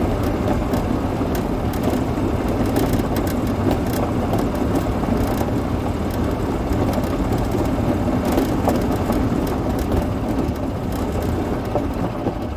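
Yamaha golf cart driving steadily, heard from on board: a constant running drone with the road rumble underneath and scattered light rattles.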